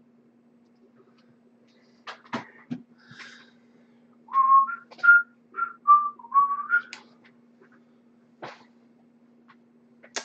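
A person whistling a short tune of about seven notes, a few of them sliding up in pitch, with a few clicks and a rustle just before and another click after, over a faint steady hum.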